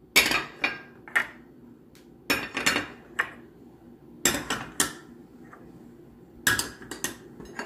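Small ceramic dishes clinking and knocking against a non-stick frying pan as ground spices are tipped and scraped out onto a fish steak, in five or six short clusters of taps with pauses between.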